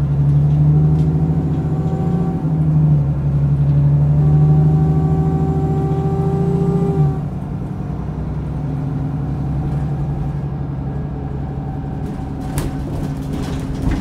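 Alexander Dennis Enviro400 double-decker bus engine pulling under load, heard from on board: a loud, steady pitched drone that drops away suddenly about seven seconds in, as if the driver eases off or the gearbox changes, then runs on more quietly. A sharp knock or rattle sounds near the end.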